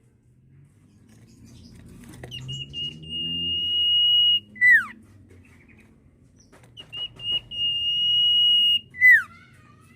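Sirtu (cipoh, an iora) whistling its typical call twice: a few short high notes running into a long, steady, high whistle, ended by a sharp downward slur.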